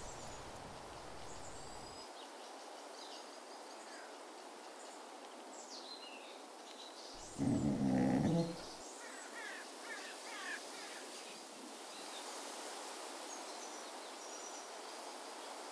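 Outdoor ambience of small birds chirping, with a trill about ten seconds in. About seven seconds in a dog vocalizes once, a loud pitched sound lasting about a second and a half.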